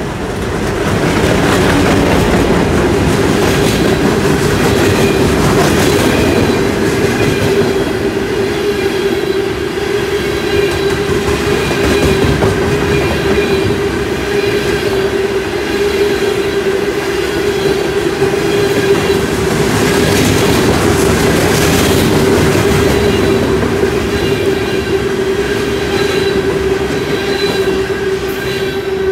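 Diesel-hauled freight train passing close by: the locomotive goes past about a second in, then a long string of open-top hopper and gondola cars rolls by, with the rumble and clatter of steel wheels on rail, occasional clacks, and a steady ringing tone underneath.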